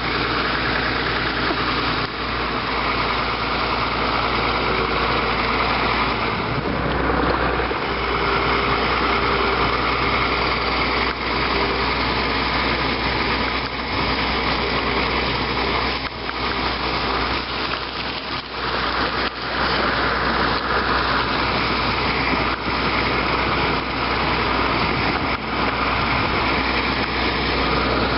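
Farm tractor engine running steadily while towing a stone boat, under a constant rough rushing noise with a few knocks scattered through.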